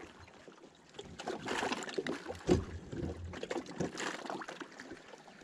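Footsteps on wooden dock planks: irregular soft knocks among light rustling.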